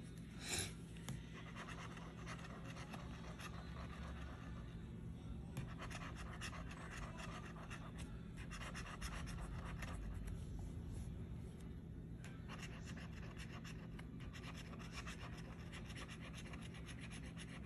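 Metal bottle opener scraping the latex coating off a scratch-off lottery ticket in runs of short, quick strokes, with a short louder noise about half a second in.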